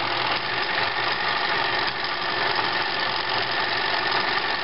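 New Home model 900 (XL-II) sewing machine running steadily, sewing a zigzag decorative stitch pattern.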